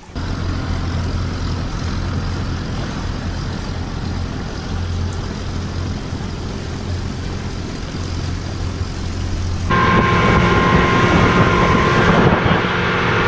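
An engine running steadily with a low hum. About ten seconds in it gives way suddenly to a louder engine sound with a steady whine.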